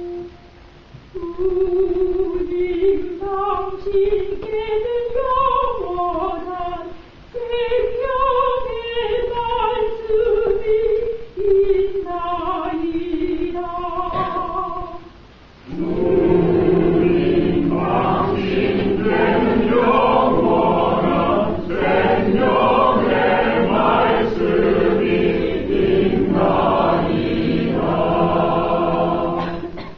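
A woman cantor sings the psalm refrain alone, one melodic line. About halfway through, the full church choir comes in and sings it back in many voices together.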